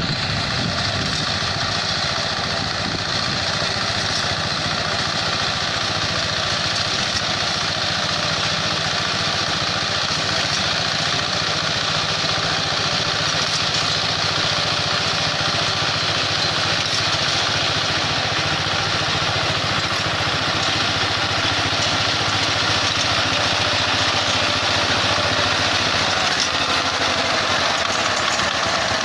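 Reaper binder's small engine running steadily as the machine harvests wheat, an even mechanical drone with no change in speed.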